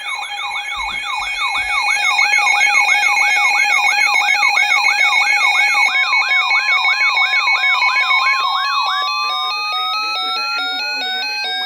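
Electronic siren yelping in fast repeated upward sweeps, about two and a half a second. About two-thirds of the way in it gives way to a single tone rising steadily in pitch over a stepped, alternating alarm tone.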